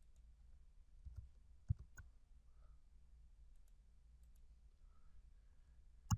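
A few faint, sharp clicks from a computer mouse and keyboard during text editing, with a louder click near the end, over a low steady hum.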